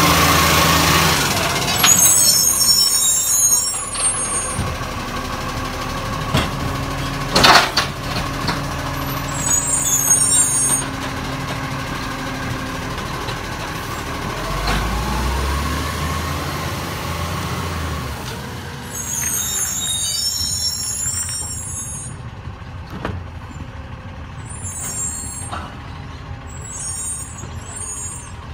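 Iveco Acco side-loading garbage truck pulling away and driving off, its diesel engine running and revving up about halfway through, growing fainter as it goes. Several short air-brake hisses come through, with one sharp knock about seven seconds in.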